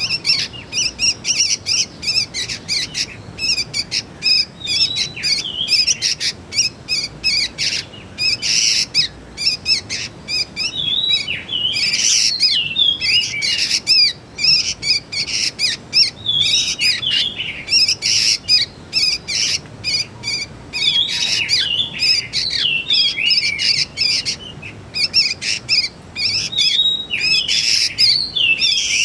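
Juvenile sooty-headed bulbuls calling: a busy, continuous stream of short high chirps and squeaky notes, many overlapping.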